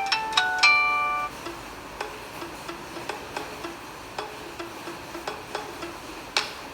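Samsung Galaxy J2 Pro ringtone playing: a few bright plucked, bell-like notes in the first second, then a softer, even pattern of short low notes with light ticks, about three a second, and one brighter note near the end.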